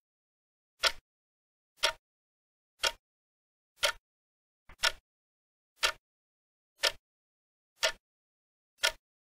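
Countdown-timer ticking sound effect, one short sharp tick about every second, counting down the time left to answer.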